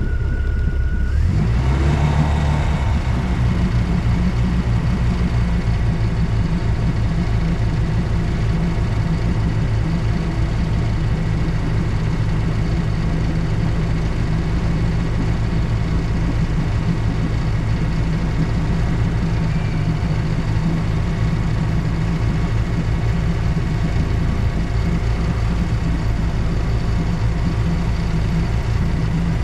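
Boat engine just started, picking up speed briefly about a second in and then idling steadily. It is being run at the ramp to check that it will restart before heading out.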